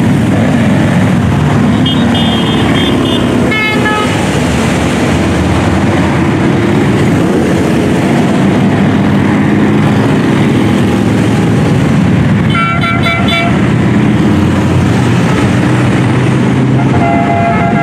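A long procession of touring motorcycles and trikes passing, a steady dense engine rumble, with horns tooting several times: two short toots in the first few seconds, another about twelve seconds in, and one starting near the end.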